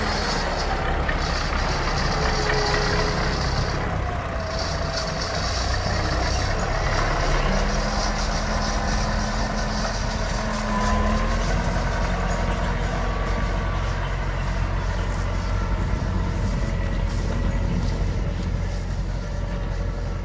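Belarus 825 tractor's diesel engine running steadily as it hauls a loaded trailer along a dirt track and moves off away.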